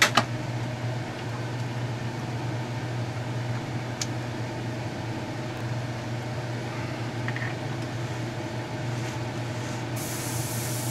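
Spray booth exhaust fan running with a steady hum, with a couple of sharp clicks right at the start. About ten seconds in, an airbrush starts hissing as it sprays.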